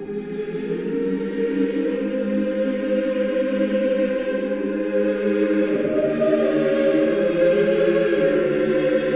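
Church choir chanting in slow, sustained held chords, in the style of Orthodox liturgical chant, growing louder over the first few seconds; the harmony moves to a new chord about six seconds in.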